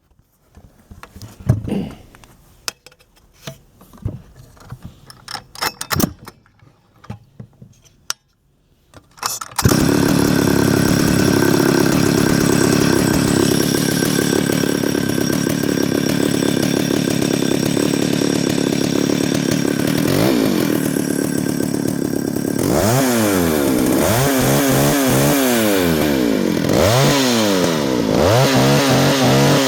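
Stihl 076 two-stroke chainsaw being started warm, without choke: a few clacks and knocks, then the engine catches about ten seconds in and idles steadily. In the last third it is revved up and down several times.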